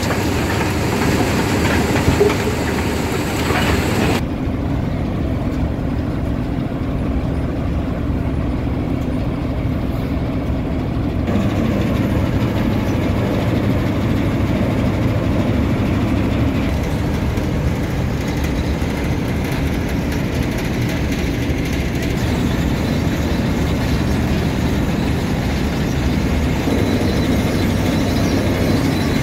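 Eagle Crusher 500-05 CV impact crusher plant running, a steady, loud rattle and hum of the machine with crushed rock riding its conveyor belt. The high hiss drops about four seconds in and partly returns later.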